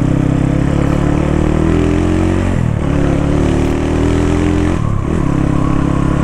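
Motorcycle engine pulling under acceleration, its pitch rising steadily and dropping sharply twice, about two and a half and five seconds in, as the rider shifts up a gear.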